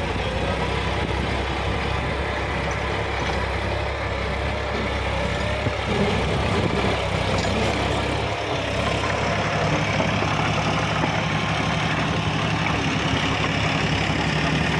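Tractor engine running under load, driving a Maschio Virat rotavator that churns dry soil, making a steady, loud mechanical din. The low engine hum shifts about eight to ten seconds in and runs steadier after.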